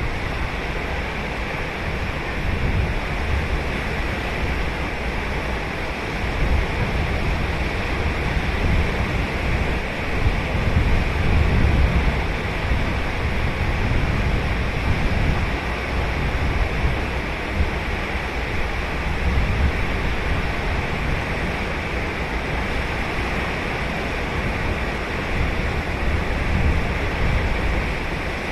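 Ocean surf breaking and washing on the shore: a continuous wash of waves with a deep rumble that swells gently and falls back.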